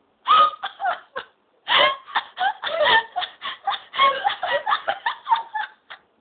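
Hearty laughter in rapid, repeated bursts, with a brief pause about a second and a half in.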